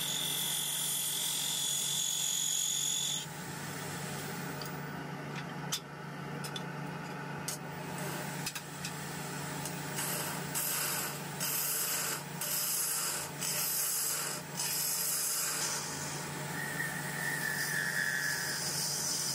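Wood lathe running with a steady hum while a gouge cuts into a spinning zelkova bowl blank: a hissing scrape that comes and goes in short passes, with a few light clicks in between.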